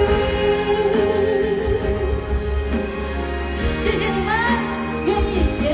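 A male singer performing live with a band, holding a long note with vibrato over heavy bass, then sliding into a higher phrase near the end, as heard from among the stadium audience.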